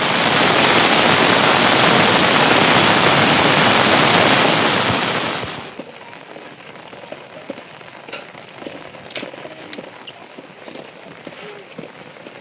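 Heavy rain falling, loud and steady, then dropping off sharply about five and a half seconds in to light rain with scattered drips.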